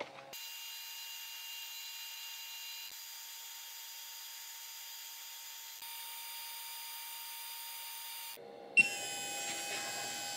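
Laser Pecker 2 laser engraver running while it engraves a plastic folder: a steady high-pitched whine over a faint hiss, stepping slightly in pitch twice. Near the end it stops, a sharp click sounds, and a different steady hum with thin tones follows.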